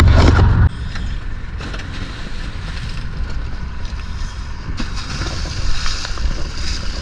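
A loud low rumble cuts off abruptly under a second in. It leaves wind on the microphone and sea water sloshing and fizzing against the side of a dive boat, with the white water of a diver's entry foaming beside the hull.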